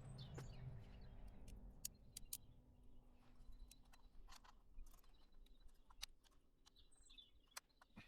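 Near silence, broken by scattered faint clicks at irregular moments and a few faint high chirps.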